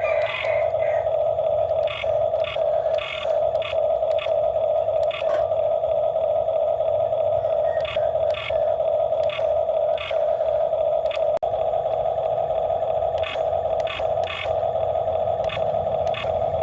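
Excavator working: a steady high whine over a low engine rumble, with frequent short clicks and knocks throughout.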